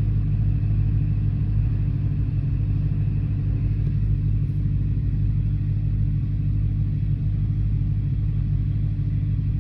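Dodge Challenger Hellcat's supercharged 6.2-litre HEMI V8 idling steadily, running on freshly replaced spark plugs after a multiple-cylinder misfire (code P0300).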